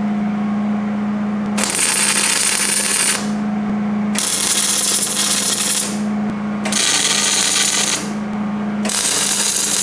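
Wire-feed (MIG) welder arc crackling as it welds steel tubing: four bursts of sizzling crackle, each one to two seconds long, over a steady low hum.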